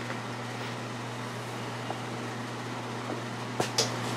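Steady low background hum, like a fan or air-handling unit running in a workshop, with two sharp clicks close together near the end.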